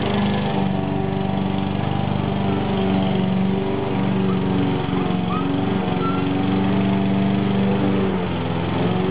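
Lawnmower engine running steadily with an even, low hum.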